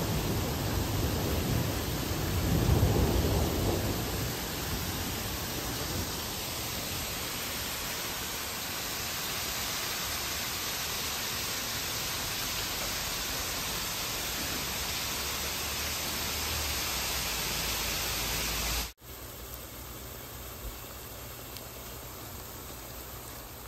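Heavy rain mixed with small hail falling on a concrete balcony, a steady hiss that swells briefly about three seconds in. Near the end it cuts off to a quieter sizzle of banana fritters frying in oil.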